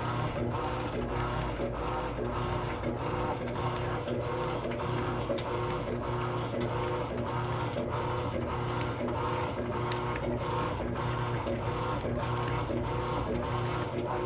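Electrolux Essencial Care LES13 top-loading washing machine running, with a motor hum and an even rhythmic churning of about two pulses a second: a racket that the owner questions as possibly not normal.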